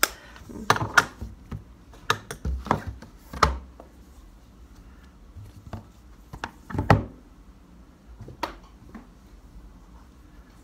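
Irregular clicks and knocks of a plastic makeup palette and brush being handled and set down, busiest in the first few seconds, with the loudest knock about seven seconds in.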